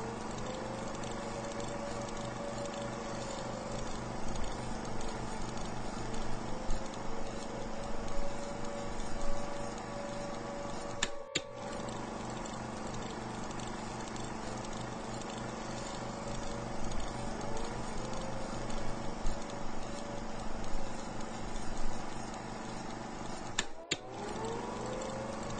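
Piston aircraft engines of a bomber formation droning steadily, with a tone that swells up and down in pitch again and again and louder surges now and then. The sound drops out for an instant twice, about halfway through and near the end.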